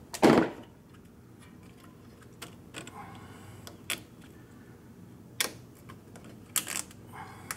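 Hands fitting a small electric cooling fan's push-through plastic mounting ties into an oil cooler: scattered sharp plastic clicks and light knocks about a second apart, with a louder rustling knock just after the start.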